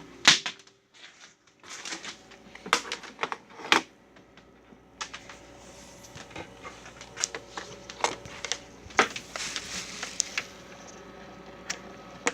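Irregular clicks of keys being pressed on a computer keyboard, some singly and some in quick clusters.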